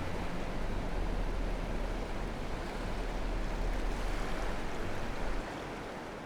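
Pacific Ocean surf washing steadily, with a low rumble underneath; it drops in level about five seconds in and begins to fade out.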